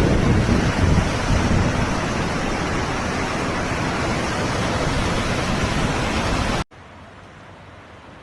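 Loud, steady rushing roar of flash-flood water, which cuts off abruptly near the end to a much quieter steady hiss.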